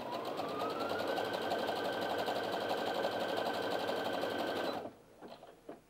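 Brother Innov-is F420 computerised sewing machine stitching a close zigzag. Its motor whine is still rising for the first second as it speeds up, then it runs steady with a fast, even needle rhythm and stops abruptly about a second before the end.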